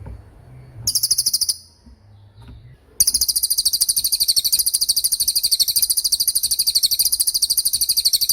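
Cililin bird singing its 'tembakan' song: a short, very high, rapid trill about a second in, then a long unbroken trill of fast, evenly repeated notes from about three seconds in.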